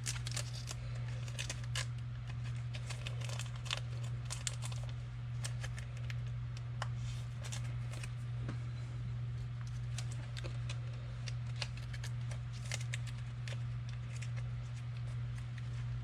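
Trading cards and their packaging being handled: a run of small irregular clicks, rustles and crinkles as cards are sorted and slid into plastic sleeves, over a steady low electrical hum.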